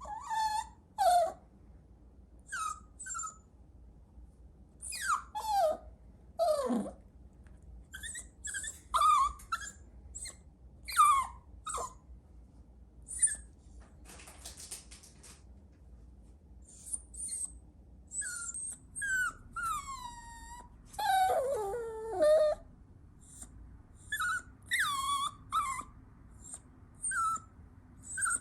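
A puppy whimpering and yelping in many short, high-pitched cries, most sliding down in pitch, with a longer falling whine about three-quarters of the way through.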